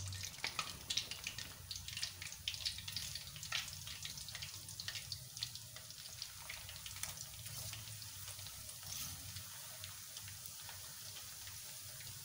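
Besan papdi discs deep-frying in hot oil in a karahi: a steady sizzle with many crackling pops. The pops are busiest in the first few seconds, just after the discs go into the oil, and ease into a quieter, even sizzle.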